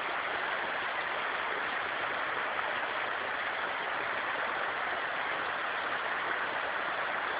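A rocky stream rushing over boulders and small cascades: a steady, even rush of water.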